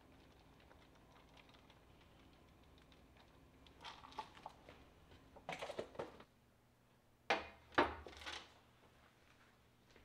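Grated cheese pattering faintly as it is shaken from a bowl onto a halved loaf of bread. Louder rustling and scraping follow about four seconds in. After that come two sharp clatters about half a second apart.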